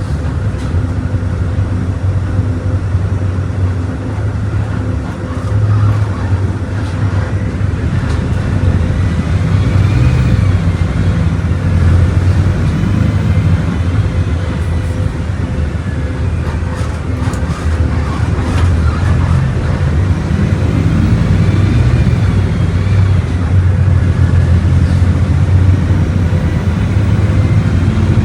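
Volkswagen Volksbus 17.230 Euro VI bus engine running on the move, a steady low drone that builds gradually louder. A faint higher whine rises and falls a few times over it.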